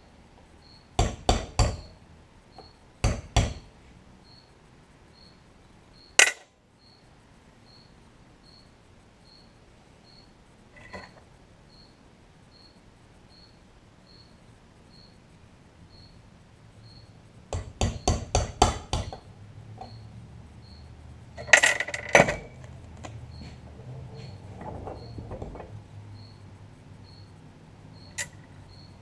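Hammer striking a punch against a hunting knife clamped in a steel bench vise, in short groups of sharp metallic taps: three, then two, then a single blow, later a quick run of six or seven and a few more. The blows are meant to drive the loose handle off the knife.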